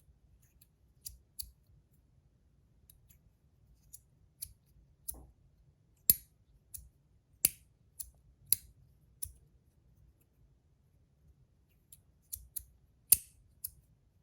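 Brass magnetic micro slider fidget being slid and snapped back and forth, its magnets pulling the brass parts together with sharp metallic clicks at irregular intervals. The clicks pause for a couple of seconds past the middle, then resume in a quick cluster.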